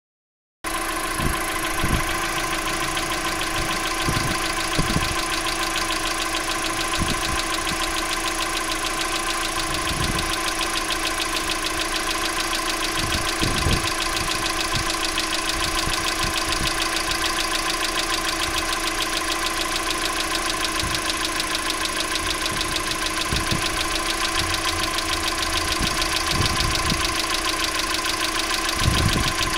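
Engine idling steadily, warmed up only to the first mark on the temperature gauge, with a knock that the owner cannot identify. Irregular low thumps come every few seconds over the even running.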